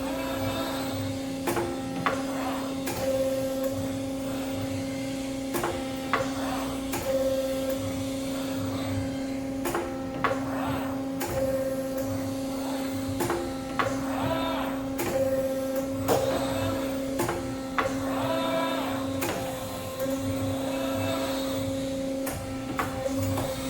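CNC tube bender working through its bending moves: a steady machine hum, with whines that rise and fall as the axes drive, and scattered clicks and knocks from the tooling.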